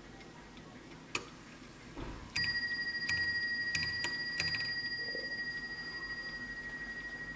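Antique c.1855 French Vincent mantel clock striking the hour on its bell, set off by moving the minute hand to twelve. There is a sharp click about a second in, then four strikes about two-thirds of a second apart, and the ringing dies away slowly after the last.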